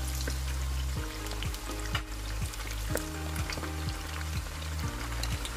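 Batter-coated chicken pieces deep-frying in hot oil: a steady sizzle with many small crackling pops. Background music with low bass notes plays underneath.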